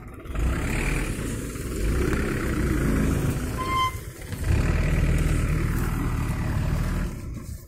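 Loaded sugarcane truck's diesel engine revving hard under load as it strains to pull out of soft field ground. It runs in two long pushes with a short dip about four seconds in, then drops off near the end.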